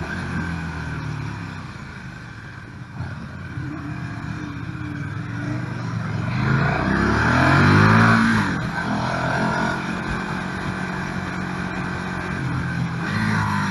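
KTM 1290 Super Duke R's V-twin engine heard onboard, pulling at moderate revs, then accelerating with a rising pitch to its loudest about eight seconds in before settling to a steady note; a shorter rise in revs comes near the end.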